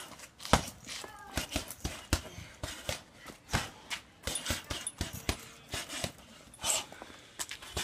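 Sharp, forceful exhales of a fighter throwing punches, mixed with irregular short knocks and taps from footwork and strikes.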